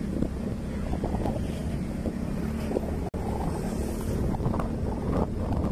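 Engine of a moving road vehicle running steadily, with wind rushing over the microphone. The sound cuts out for an instant about three seconds in.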